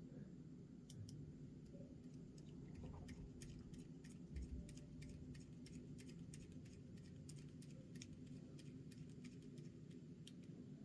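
Faint, irregular light clicks and ticks of tiny screws, parts and a small driver being handled while a micro RC crawler's front axle is assembled, over a low steady hum.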